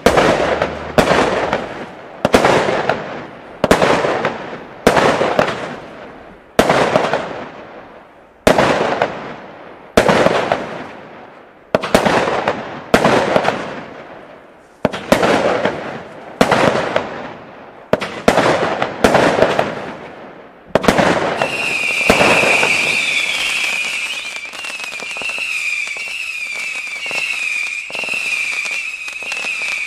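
WECO Spotlight firework compound firing its shots about once a second, each a sharp bang that dies away. About two-thirds of the way in the shots give way to a continuous hiss with a warbling high whistle.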